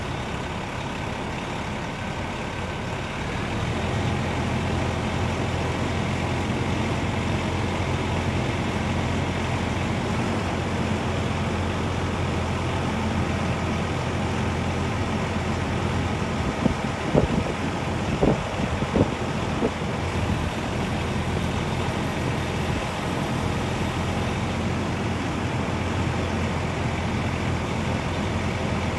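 Peterbilt 378 crane truck's diesel engine running steadily, stepping up to a higher, louder speed a few seconds in as it powers the hydraulics raising the crane boom. A few short, sharp sounds come about two-thirds of the way through.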